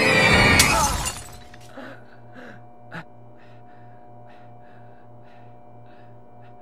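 Loud horror-score music cut off by a sudden crash about half a second in, which dies away within a second. After it, quiet with a steady low hum, a few faint clicks and a faint regular pulse about twice a second.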